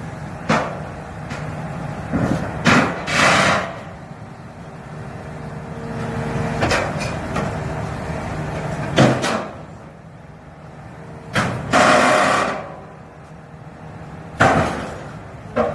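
Excavator engine running steadily while a hydraulic beam shear (MS550-II) bites through steel. Sharp metallic bangs and snaps come every few seconds, and two longer crunching bursts come about three seconds in and near twelve seconds.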